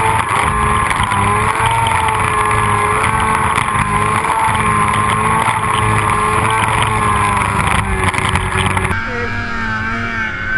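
Snowmobile engine running hard at high revs through deep powder, its pitch wavering slightly, with a steady hiss over it. The sound changes abruptly near the end.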